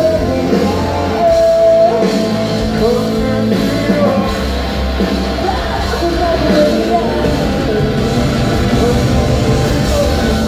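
A live rock band playing loudly, with guitars, bass and drums, and a singer holding long sung notes over them, heard from the crowd in a large hall.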